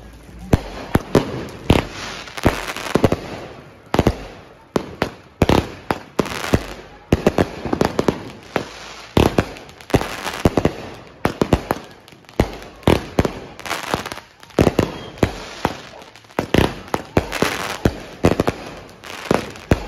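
Consumer aerial fireworks firing and bursting overhead: a fast, irregular run of sharp bangs, many followed by crackling.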